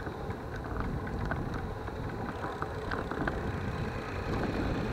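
Wind buffeting the microphone of a camera moving along a concrete road, a steady low rumble with scattered small rattling clicks.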